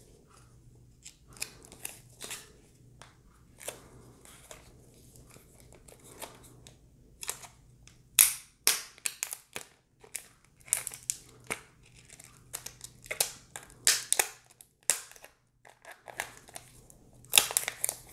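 Protective wrapping being peeled and torn off a new smartphone: scattered crinkles, rustles and small tears, with louder clusters a little past the middle and again near the end.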